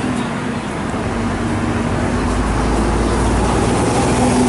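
Road traffic: cars passing close by, a steady engine hum over road noise.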